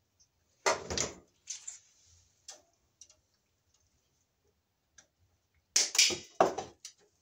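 A ground wire being pushed and bent into place inside a metal breaker panel: scattered clicks and scrapes of wire against metal and other wires, louder about a second in and again near the end.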